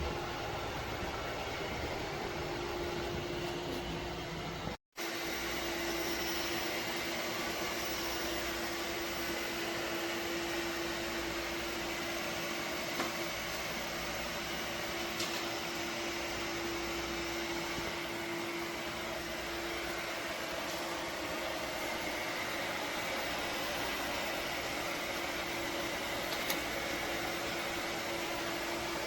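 Robot vacuum running: a steady motor and fan hum with a constant low tone, briefly cut off once about five seconds in.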